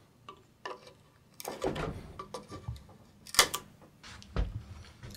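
Irregular light knocks and clicks of wooden sculptures being handled and touched with a brush, with a sharper knock about three and a half seconds in.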